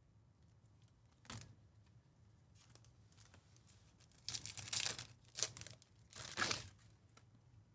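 A foil Topps Chrome trading-card pack being torn open and its wrapper crinkled, in three short crackly bursts over the second half, after a faint tap about a second in.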